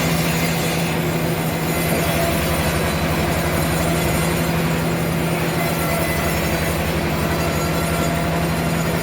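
Sawmill machinery running steadily: a constant low hum with a fast, even pulse and a faint high whine.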